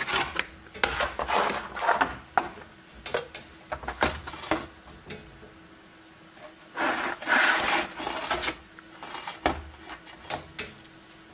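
Stiff-bristle hand brush scrubbing the rusty surface of a steel helmet in short, irregular strokes, mixed with knocks as the helmet and a plastic tray are handled. A longer run of scrubbing comes about seven seconds in.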